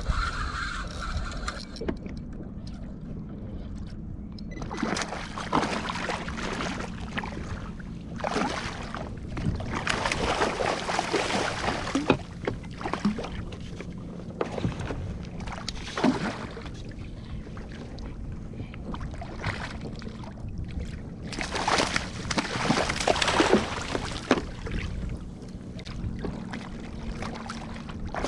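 Choppy water splashing and sloshing against the hull of a small fishing boat under way, in uneven surges over a steady low hum.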